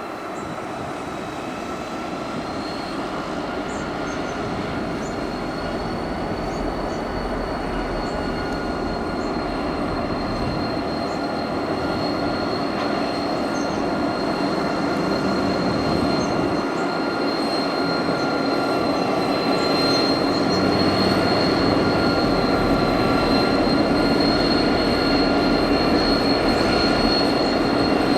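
Train rolling past, growing steadily louder as it draws nearer, with a steady high-pitched squeal from the wheels over the rumble of the cars.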